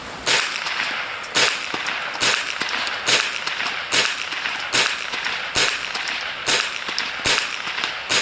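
Savage Model 64G semi-automatic .22 LR rifle fired shot after shot at a steady pace, about one shot a second, some ten shots in all.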